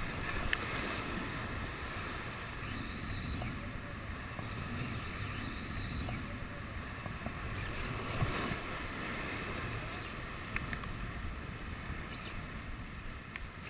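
Surf washing against shore rocks and wind buffeting the microphone, a steady rushing noise with a few faint clicks.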